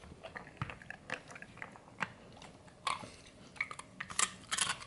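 A dog crunching and chewing a Takis rolled tortilla chip: irregular crisp crunches, the loudest cluster about four seconds in.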